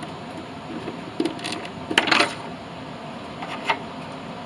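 Small metal hardware clinking as it is handled: a few light clicks, a cluster of clinks about two seconds in, and one more tick near the end.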